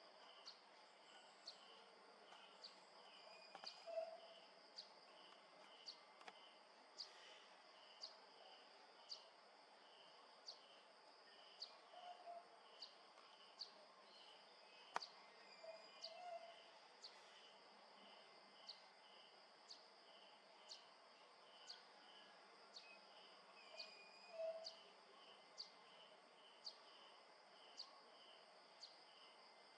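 Faint insect chorus: a steady high-pitched buzz with a rhythmic chirp repeating about two to three times a second. Sharp ticks come about once a second, and there are a few short low notes.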